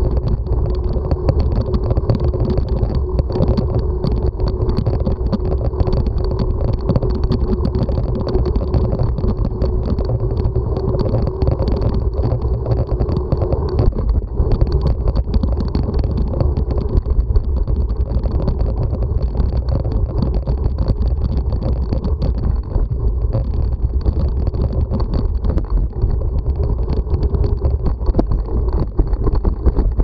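Steady rumble of a bicycle riding along a dirt path: tyres rolling and wind on the bike-mounted camera's microphone, with a faint steady hum running through it that fades about halfway.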